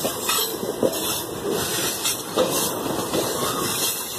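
Loaded grain hopper wagons of a long freight train rolling past close by: a steady rushing rumble of wheels on rail, with several irregular clacks as the wheels pass over the rail joints.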